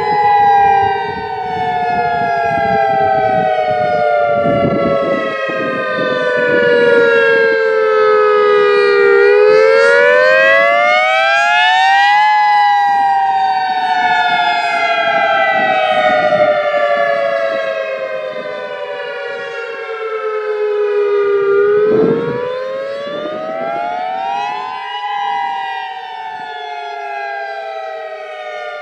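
Federal Signal EOWS 612 electronic siren sounding the attack (wail) signal: a loud tone that slowly slides down in pitch, climbs back up about nine seconds in and again about twenty-two seconds in, and slides down again each time.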